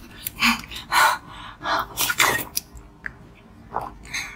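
A woman's breathy puffs and short gasps through pursed lips, about half a dozen in a row.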